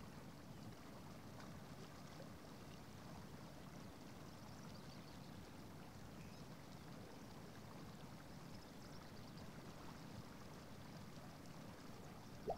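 Faint, steady rush of a flowing river, with a brief sharp sound at the very end.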